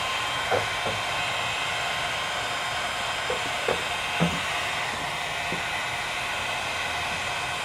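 Electric heat gun running steadily, a constant rush of blown air, used to warm vinyl tint film so its bottom edge sets onto the lens.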